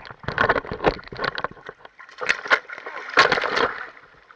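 Juvenile tarpon thrashing in shallow water as it is landed by hand: loud, uneven splashes and slaps in three flurries, the last and loudest a little past the middle.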